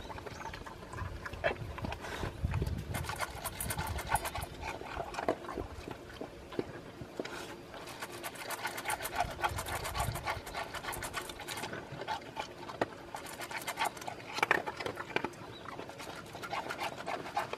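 Dog eating dry kibble from a metal bowl: a rapid, uneven run of crisp crunches as it chews.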